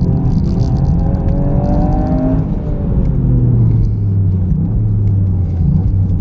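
Toyota GR Yaris's turbocharged 1.6-litre three-cylinder engine, fitted with an HKS Power Editor, pulling under acceleration. Its note rises for about two and a half seconds, then drops away as the revs fall and settles into a lower steady drone over road rumble.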